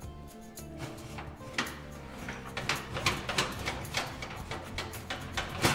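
Clicks and knocks of an oven door, rack and baking pan being handled as the pan is taken out of the oven, with a sharper clack near the end. Quiet background music plays underneath.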